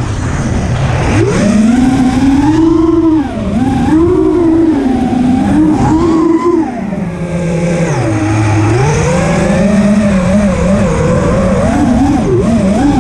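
Racing quadcopter's brushless motors and propellers whining at full throttle changes, the pitch swooping up and down again and again as the drone flips and dives, with a deep dip past the middle.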